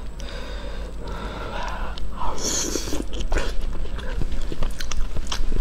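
Close-miked eating sounds: wet chewing, mouth clicks and lip smacks, with a brief sucking noise about halfway through as a saucy piece of sliced meat is taken from chopsticks into the mouth.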